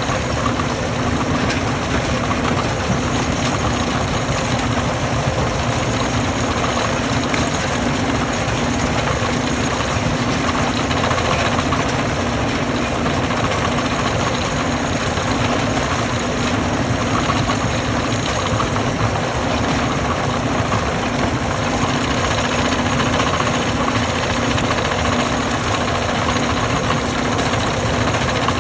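Stone crushing machine running steadily: a constant heavy machine hum under dense rattling and grinding noise, with no letup.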